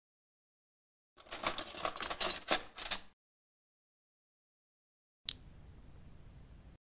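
Typewriter keys clacking in a quick run for about two seconds, then, a couple of seconds later, a single bright bell ding that rings out and fades.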